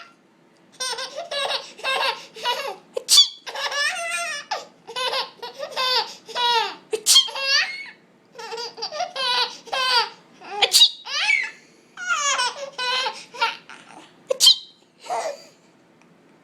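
A baby laughing in repeated bursts of high-pitched giggles and belly laughs. A short, sharp pretend sneeze comes about every four seconds, four times, each setting off a fresh run of laughter.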